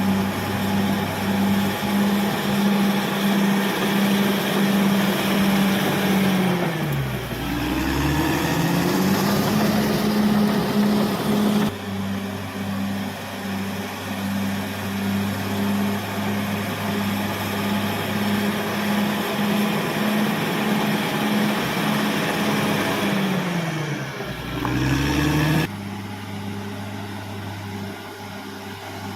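Caterpillar D6R XL bulldozer's diesel engine running steadily under work. Twice, about seven and twenty-four seconds in, the engine speed drops sharply and then climbs back up.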